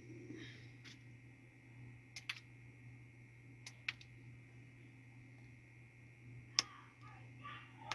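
A handful of faint, sharp clicks and taps of small parts being picked up and handled on a tabletop, the loudest about two-thirds of the way in, over a steady low hum.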